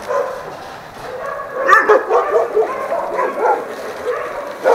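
A pack of about eighteen shelter dogs barking and yelping at once, a dense overlapping chorus that sounds like a hundred dogs. It swells about two seconds in.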